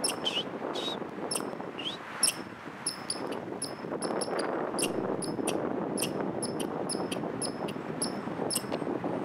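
American red squirrel calling: a steady series of short, high chirps, about three a second, with a few falling squeaks in the first two seconds. Steady background noise runs underneath.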